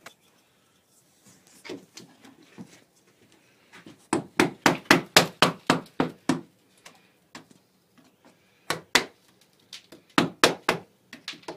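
Hammering with a wooden-handled hand tool on the wooden gunwale edge of a canvas-covered canoe. After a quiet start there is a quick run of sharp taps, about five a second, from about four seconds in, then two single knocks and another short run of taps near the end.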